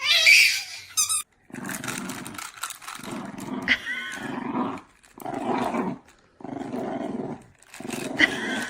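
A dog growling in repeated bouts, roughly one a second, after a short high-pitched squeal at the start.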